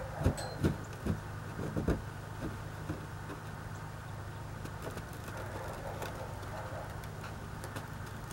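Gloved hands scooping and packing snow on a car's hood. A handful of short crunching scrapes fall in the first two seconds, then it settles to a steady low hum.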